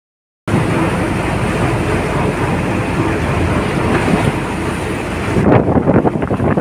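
Steady low rumble of a small boat's engine running under way, with wind buffeting the microphone; near the end the wind turns gusty and uneven.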